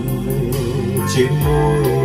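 A Vietnamese ballad played back through hi-fi loudspeakers and picked up in the room: an instrumental passage of sustained chords and a wavering melody line, with light regular percussion strokes on top.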